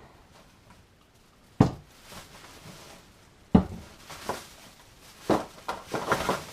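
Two sharp thumps about two seconds apart, then a quick run of lighter knocks and clatter, like objects being handled and set down.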